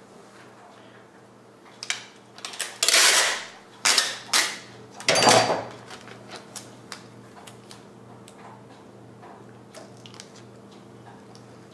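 Transparent packing tape being pulled off the roll in three loud, noisy strips between about three and six seconds in, with small clicks of handling around them, over a faint regular ticking.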